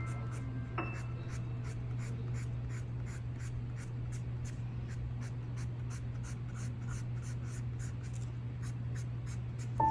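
Pencil or charcoal strokes scratching on paper in a steady rhythm of about three strokes a second, over a steady low hum.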